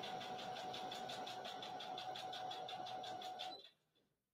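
Electric sewing machine running a straight stitch through stacked paper snowflakes, with a rapid, even stitching rhythm. It stops suddenly about three and a half seconds in.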